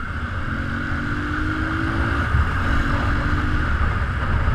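Keeway Cafe Racer 152 motorcycle engine running under way, its note rising slowly twice with a short break between, over a steady rumble of wind on the microphone.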